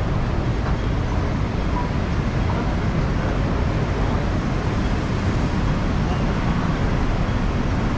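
City street ambience: steady traffic noise along a busy road, a continuous low rumble with no sudden events.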